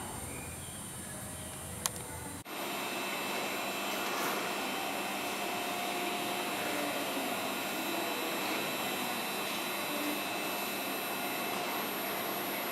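Steady whooshing machinery noise of a railway station platform, with faint steady tones. It breaks off abruptly about two and a half seconds in and carries on louder and brighter.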